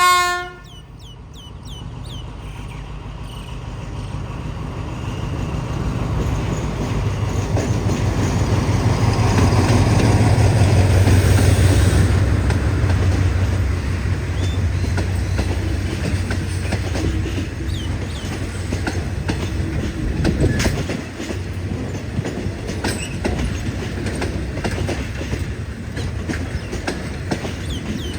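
A train horn blast cuts off at the very start as a train passes. Its engine drone builds to a peak about ten seconds in, then the carriage wheels click steadily over the rail joints as the train rolls by.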